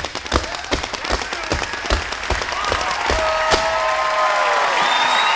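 Tap shoes striking the stage floor in a fast rhythm, closing with one hard final stamp about three and a half seconds in. Audience applause and cheering swell from just before the final stamp and carry on after it.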